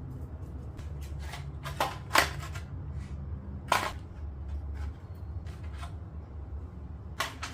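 Handling noise from unboxing the mask: scattered sharp clicks and crinkles of plastic packaging being handled, the loudest about two and four seconds in and a quick run of them near the end, over a steady low hum.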